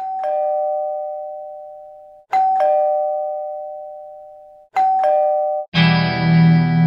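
Two-note ding-dong doorbell chime, a higher note then a lower one, struck three times about two and a half seconds apart and left to die away; the third is cut short as music with a low sustained chord comes in near the end.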